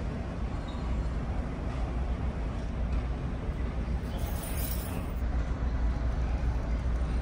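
Steady low drone of the ferry Silver Tiara's engines and machinery heard inside the ship while under way, with a brief high hiss about four seconds in.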